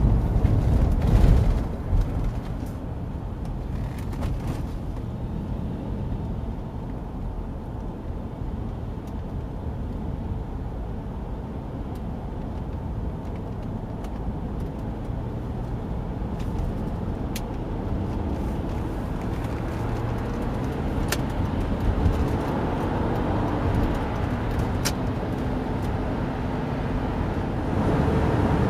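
Steady low road and engine noise inside a Honda CR-V's cabin while driving at road speed, with a few faint clicks in the second half.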